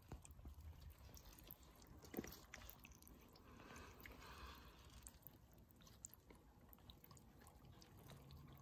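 Near silence: a very faint trickle of a shallow stream running over rocks, with small ticks and one light knock about two seconds in.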